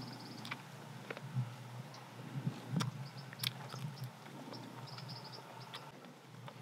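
Close-up chewing of grilled smoked duck meat: wet mouth smacks and small clicks, with a few sharper clicks now and then.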